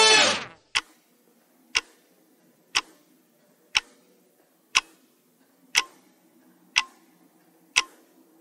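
Clock-style tick sound effect of a quiz countdown timer, one crisp tick about every second, eight in all. Just before the ticking starts there is a brief falling-pitch chime.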